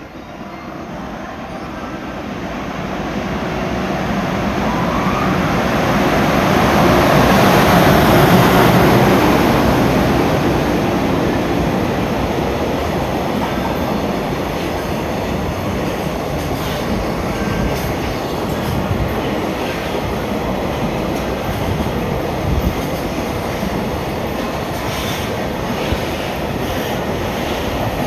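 Freight train passing on the tracks. The noise swells to its loudest about eight seconds in, then a long steady run of wagon wheels on the rails follows, with a couple of sharp knocks near the end.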